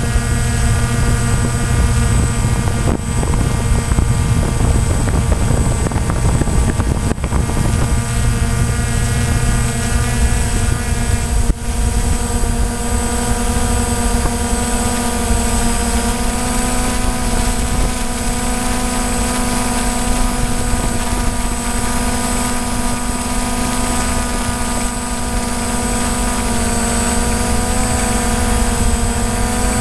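DJI Phantom quadcopter's four brushless electric motors and propellers in flight, picked up by the GoPro mounted on the drone: a steady buzzing whine of several pitches over a low rush of prop wash. The pitch shifts slightly a little before halfway and again near the end as the drone manoeuvres.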